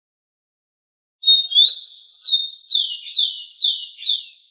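Rufous-collared sparrow (tico-tico) singing one song about a second in: a level whistle that slides upward, then five evenly spaced down-slurred notes.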